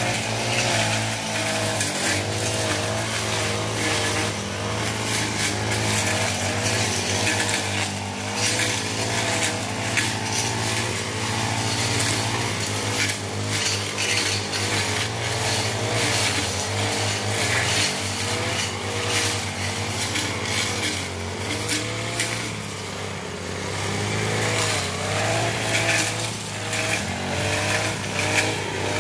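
Two petrol brush cutters running together while cutting grass and brush, their engine pitch rising and dipping continually as the blades take load, with scattered ticking hits from stems and debris.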